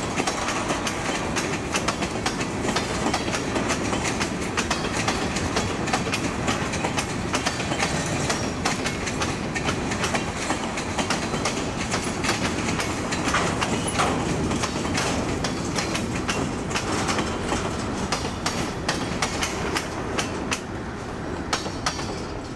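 Freight cars (tank cars and covered hoppers) rolling past, their steel wheels clicking over the rail joints in a steady rapid clickety-clack. The sound eases off near the end as the last car goes by.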